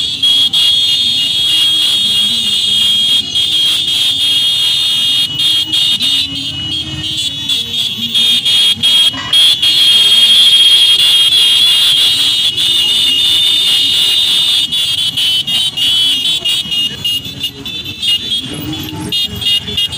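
Several motorcycles riding together with engines running, under a continuous shrill high-pitched tone that is loudest about halfway through.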